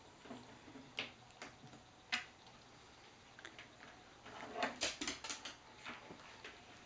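Small dogs sniffing at live Dungeness crabs: a few faint clicks, then a quick run of short sniffs about five seconds in.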